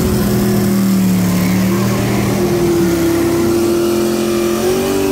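V8 engine of an LSX-badged Chevrolet Malibu drag car revved and held at a steady high rpm, then brought up to a higher held rpm about three seconds in.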